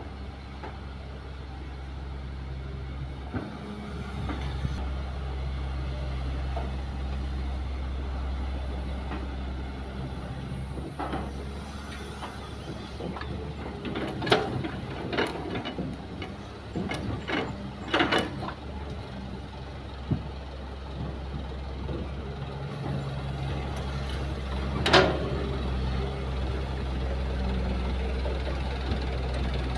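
Diesel engines of a Kobelco hydraulic excavator and a dump truck running steadily. About halfway through, a quick series of sharp knocks and clatters comes as a bucketload of soil and rocks is dropped into the truck's bed, and a single louder knock follows a few seconds later.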